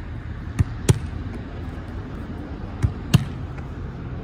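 Soccer ball being volleyed and caught in goalkeeper gloves: two pairs of sharp thuds, each pair a third of a second apart with the second thud louder, and about two seconds between the pairs.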